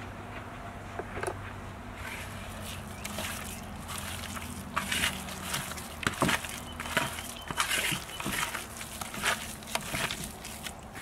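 A hand squishing and kneading a wet red paste mixed with raw egg in an aluminium bowl, making irregular wet squelches and scrapes that grow louder and busier about five seconds in.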